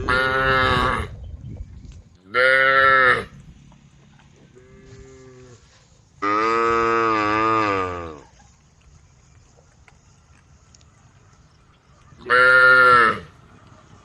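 Cows mooing: four loud calls spaced a few seconds apart, the third the longest at about two seconds, with a fainter short moo between the second and third.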